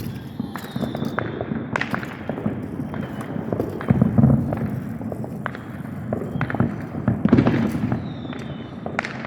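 Fireworks going off: a run of sharp pops and crackles over low booms, loudest about four seconds in and again just past seven seconds, with a thin high whistle near the start and near the end.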